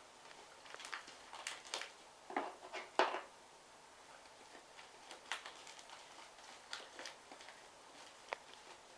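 Fluffy slime being worked by hand: faint, irregular sticky clicks and crackles, a cluster of louder ones about two and a half to three seconds in.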